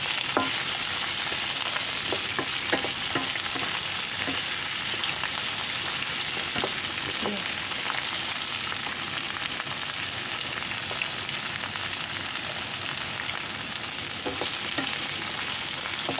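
Chicken, potato and chilli sizzling in a non-stick frying pan while a wooden spatula stirs them, with a few light knocks of the spatula against the pan.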